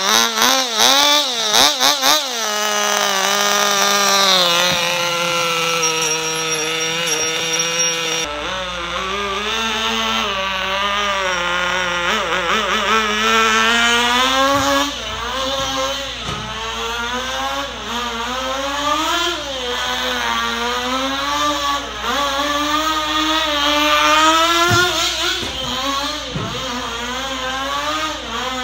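Small nitro glow engine of a 1/16-scale Sportwerks Chaos RC buggy, blipped up and down for the first couple of seconds and then held at a steady speed. From about eight seconds in the buggy is driving, its engine pitch rising and falling over and over with the throttle.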